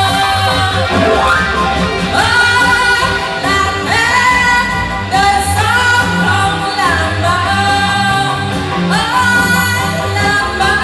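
A Vietnamese pop song with a singer and band: a voice holds and glides through long notes over a steady bass line and accompaniment.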